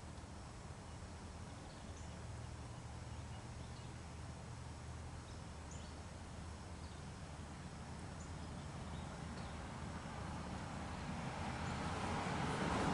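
Faint steady background with scattered small high chirps. Near the end a rushing noise swells up, the sound of the toilet's flush water coming down the sewer drain line.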